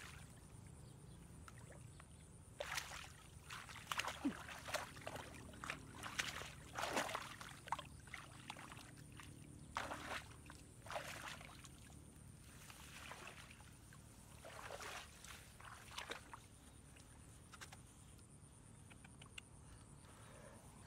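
Shallow muddy water splashing and sloshing as a person wades through a flooded grassy field and gropes in it by hand, in irregular bursts that thin out in the last few seconds.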